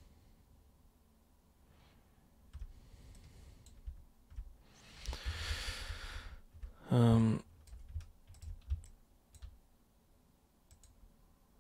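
Scattered clicks of a computer mouse and keyboard, with a long sighing breath out about five seconds in, followed at once by a short hummed voice sound, the loudest thing here.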